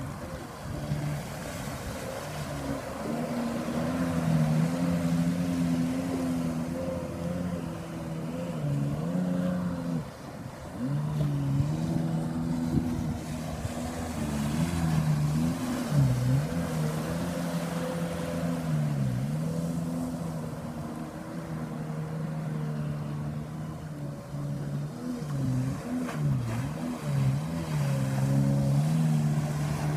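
Watercraft engine running, its pitch rising and falling with the throttle, with a brief drop about ten seconds in and several quick dips later on.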